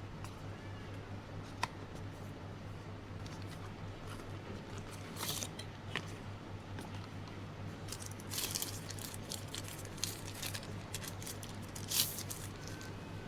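Handling noises from a smartphone unboxing: scattered clicks and taps with a few short rustles of packaging, over a steady low hum. The sharpest click comes about twelve seconds in.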